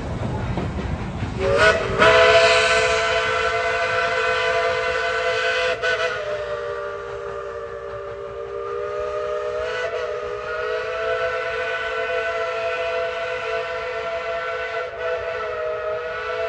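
Steam locomotive whistle sounding one long chord of several notes together, starting about a second and a half in and held to the end, over the low rumble of the train running.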